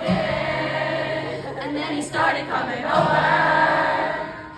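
Live pop song heard from the audience: a woman singing into a microphone over acoustic guitar and keyboard, with many voices in the crowd singing along.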